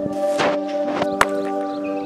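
A few sharp knocks of a hammer striking stone, the loudest just over a second in, over steady background music.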